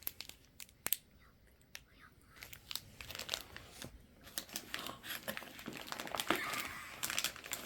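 Plastic snack wrappers crinkling as packaged treats are handled and pulled from a snack box: a few scattered crackles at first, then steady dense crinkling from a few seconds in.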